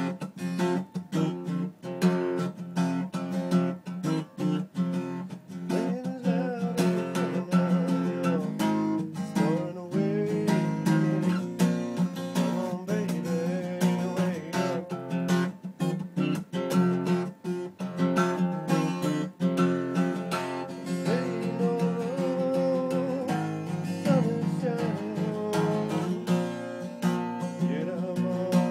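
Acoustic guitar strummed in a steady rhythm, with a voice singing over it from about six seconds in.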